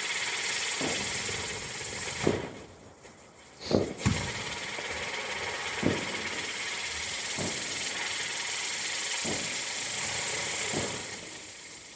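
A firework going off: a steady hiss of burning with a short thump every second or two as each shot fires, about eight in all. The hiss cuts out briefly around three seconds in and fades away near the end.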